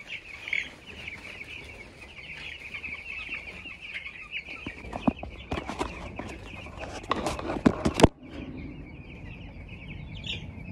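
A flock of young chicks peeping continuously in quick, short calls. From about five to eight seconds in, a run of sharp knocks and rattles cuts across them, loudest near the end of that run.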